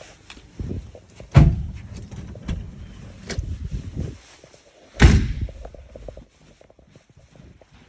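A door slammed shut twice, about a second and a half in and again about five seconds in, with smaller knocks and thuds between the two slams.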